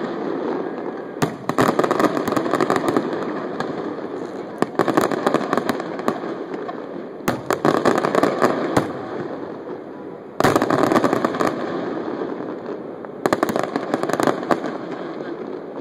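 Fireworks display: aerial shells bursting in clusters of sharp bangs every two to three seconds. Each cluster is followed by a long crackling hiss from glittering gold stars, fading before the next volley.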